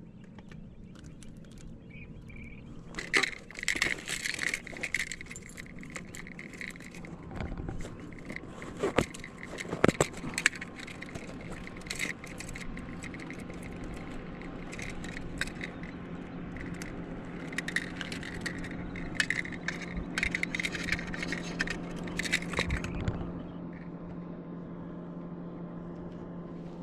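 Clinking and rattling of small hard objects in bursts, stopping a few seconds before the end, over a steady low hum.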